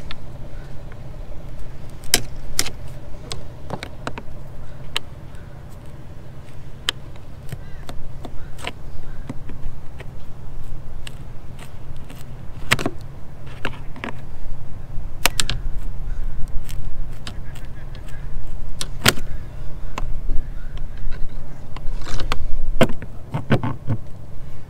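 Steel wrench clinking and scraping on a rusty antenna mount as it is worked loose: sharp metallic clicks at irregular intervals, over a steady low rumble.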